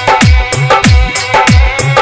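DJ remix dance music with a driving electronic beat: a deep kick drum that slides down in pitch on each hit, crisp percussion on top and sustained melodic tones.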